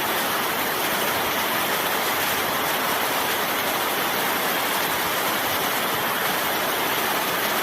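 Steady rain falling, an even, unbroken hiss of many raindrops.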